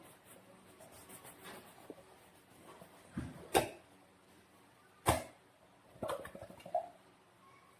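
Handling sounds from slime and balloon work: a few sharp clicks or snaps amid quiet rustling. There is a dull thump a little after three seconds, loud snaps about three and a half and five seconds in, and a short run of smaller crackles around six seconds.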